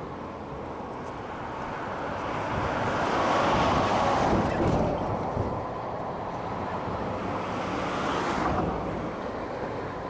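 Strong southwest wind buffeting the microphone, a rushing noise that swells louder in two gusts, about three to five seconds in and again near eight seconds.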